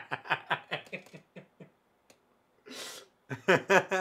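A man laughing hard in quick bursts that fade out about a second and a half in, a sharp breath in, then another burst of laughter near the end.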